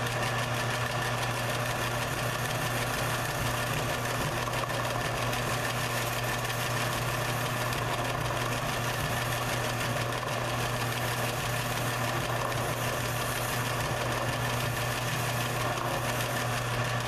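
Benchtop belt sander running steadily, its sanding belt repaired with a Shoe Goo and canvas patch, with a wooden piece held against the moving belt: a steady motor hum under an even rasping hiss of abrasive on wood.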